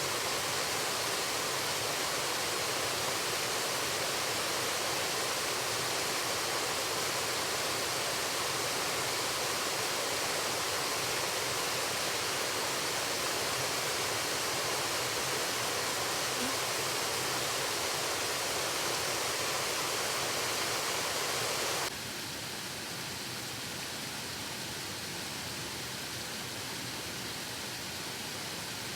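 Waterfall rushing: a steady, even roar of falling water that drops suddenly to a somewhat quieter rush about three-quarters of the way through.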